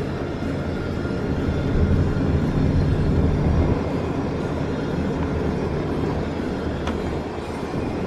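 Steady road and engine rumble of a car driving, heard from inside the cabin, swelling a little about two to four seconds in.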